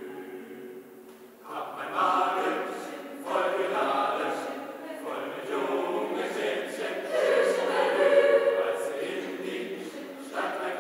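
Mixed choir of women's and men's voices singing in phrases: a soft passage, then a louder entry about a second and a half in, with further phrases swelling up after it, the loudest near the end.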